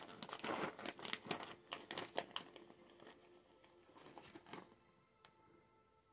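Plastic pouch of Greenies cat treats crinkling as it is handled, a quick run of rustles that fade out about four and a half seconds in.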